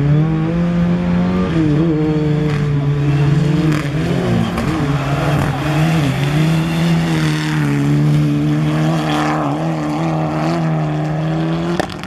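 Mitsubishi Lancer Evolution rally car's turbocharged four-cylinder engine running hard at high revs as it slides around a dirt track, its pitch dipping and climbing with throttle and gear changes. The sound drops sharply near the end.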